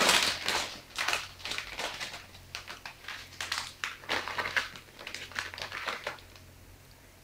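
Red silicone spatula stirring and mashing a moist cauliflower and minced chicken mixture in a bowl: a run of quick, irregular scraping strokes that stops about six seconds in.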